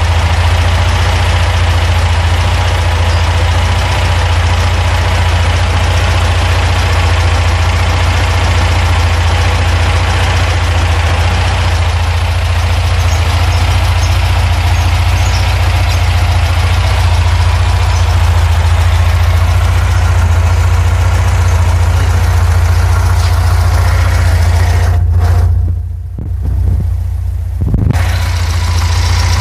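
VW Safari's air-cooled 1600 cc flat-four engine idling steadily while warming up, briefly sounding muffled near the end.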